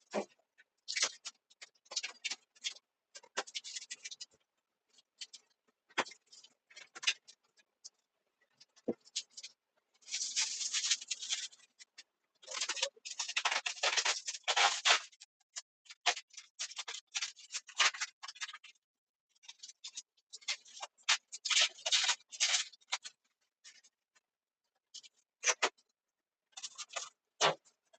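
Irregular scraping, rubbing and clicking handling noises, played back at three times speed, broken by short dead-silent gaps; the longest scraping stretches come about ten and about thirteen to fifteen seconds in.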